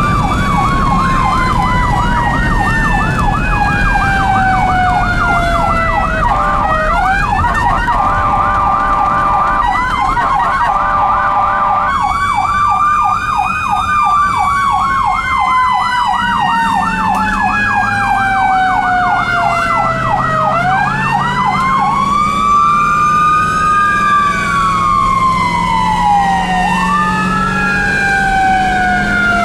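Two sirens sounding together on a moving ambulance. A Federal e-Q2B winds down in one long falling tone and is spun back up about two-thirds of the way through, while a Whelen electronic siren runs a fast yelp. The Whelen briefly changes tone about eight seconds in, and near the end it goes over to a slower rising and falling wail.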